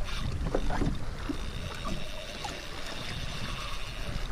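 Sea water lapping and splashing against a kayak's plastic hull, with wind on the microphone and a faint, steady high whine through the second half.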